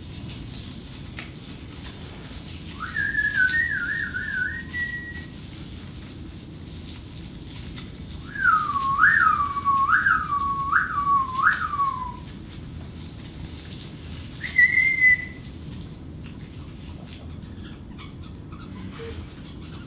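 Bird-like whistling close to a microphone, in three phrases: a short warbling trill about three seconds in, four rising-and-falling swoops in the middle, and one brief high note near the end.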